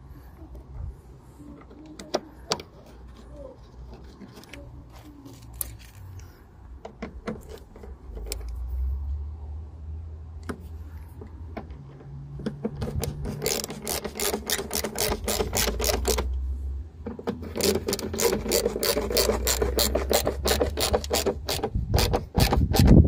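Small ratchet handle with a screwdriver bit clicking rapidly in two long runs as screws are driven into a plastic mudflap, with scattered handling clicks before them.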